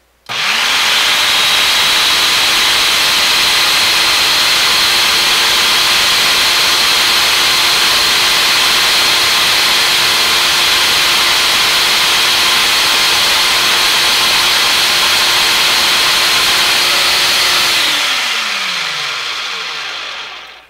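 Food processor motor starting up and running loud and steady with an even hum while canola oil is drizzled through the feed tube to emulsify a soy-milk mayonnaise. It is switched off about 18 seconds in and winds down with a falling hum.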